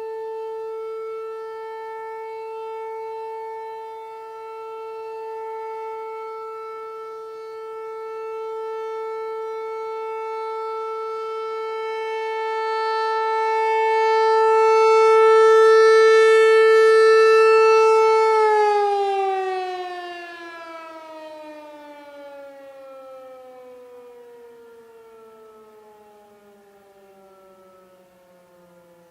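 ASC T-128 outdoor warning siren sounding a steady single tone, swelling and fading in loudness, very loud. About two-thirds of the way in it shuts off and winds down, its pitch sliding steadily lower as the sound dies away.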